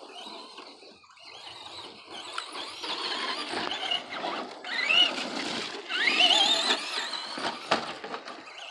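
Traxxas Slash electric RC truck driving on pavement, its motor whining in pitch that rises and falls with the throttle, loudest about five and six seconds in.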